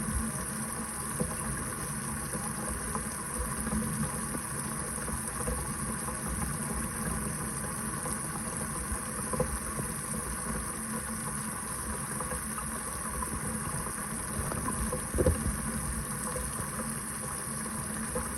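Kitchen faucet running steadily into the sink, an even rush of water. Two brief knocks stand out, one about halfway and a slightly louder one near the end.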